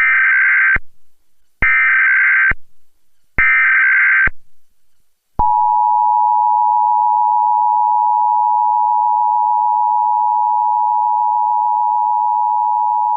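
Emergency Alert System SAME header: three bursts of rapid digital data warble, each about a second long with short gaps. About five seconds in, the steady two-tone EAS attention signal takes over and holds, announcing a tornado warning.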